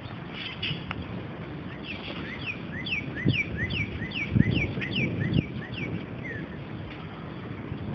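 A songbird singing a run of about a dozen clear down-slurred whistled notes, roughly two a second, over low outdoor rumbling that swells in short bursts around the middle.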